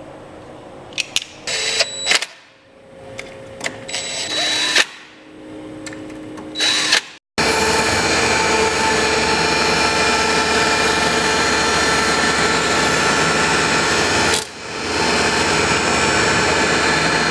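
Tormach CNC mill cutting G10 fibreglass laminate. For the first several seconds it is stop-start, with short sharp sounds and the spindle's pitch sliding up and down. Then, after an abrupt break, comes a loud, steady cutting noise with a whine, dipping briefly once near the end.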